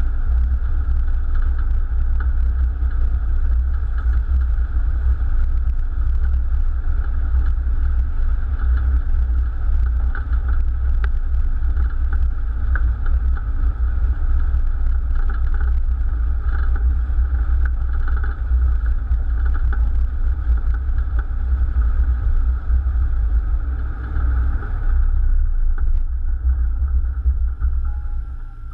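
Piston engines of a WWII warbird running steadily, with a heavy low rumble under a steady mid-pitched drone.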